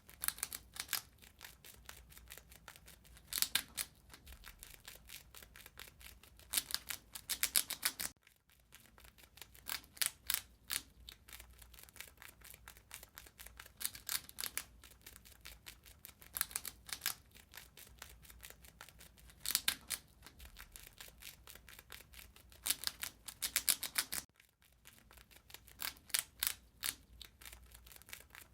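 A rat eating: rapid, dense gnawing and crunching clicks, with louder flurries every few seconds. The clicking breaks off briefly twice.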